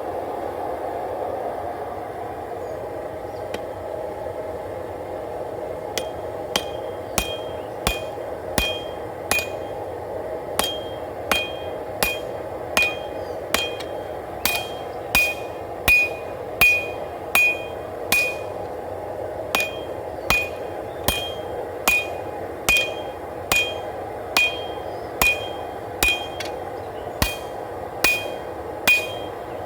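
Hand hammer striking hot W-2 steel on an anvil, forging the knife blade around a pre-cut choil: evenly paced blows a little over one a second, each with a short metallic ring, starting about six seconds in. Under them runs the steady roar of a forced-air propane forge.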